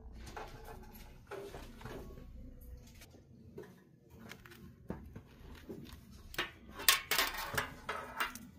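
Shoes and their tags being handled on a store shelf: scattered light knocks and rustles, with the loudest clatter about seven seconds in.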